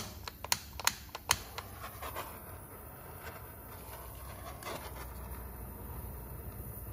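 Butane mini jet pencil torch being lit: three sharp clicks of its igniter within the first second and a half, then the faint steady hiss of its blue jet flame.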